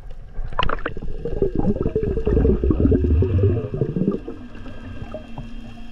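Underwater audio of gurgling water and bubbles against a camera housing. There is a short rush under a second in, then a dense crackling gurgle for about three seconds. It then eases into a quieter wash of water with a steady low hum.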